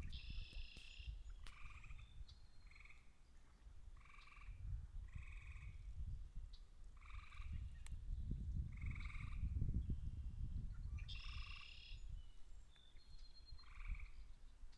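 Frogs calling: a chorus of short trilled calls, each about half a second long, repeating roughly once a second, over a low rumbling noise.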